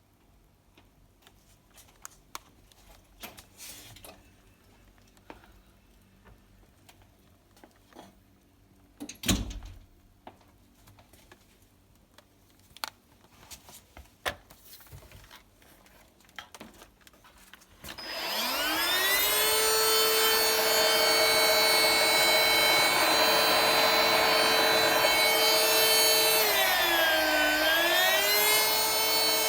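Scattered clicks and knocks of the vacuum cleaner being handled, then, about two-thirds of the way in, a cordless vacuum cleaner's motor switches on and spins up to a loud, steady high whine. Near the end the whine dips in pitch once and comes back up.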